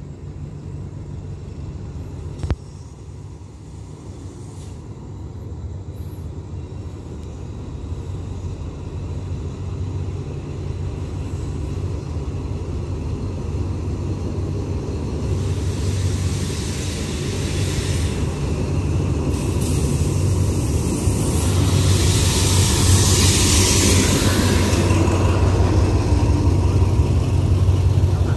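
Diesel-hauled passenger train pulling into the station: a steady low locomotive engine hum growing louder as it approaches. The clatter and hiss of wheels on the rails build from about halfway and are loudest a few seconds before the coaches roll past. A single sharp click about two seconds in.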